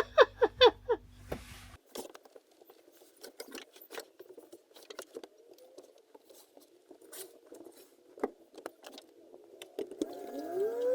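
Laughter trailing off, then faint scattered clicks and rustles of light handling in a small room. Near the end, sustained steady tones start, one gliding upward.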